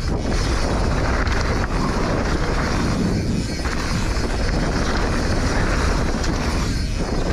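Wind buffeting the microphone and trail rumble from a mountain bike rolling fast down a dirt descent, with a few small knocks from the bike.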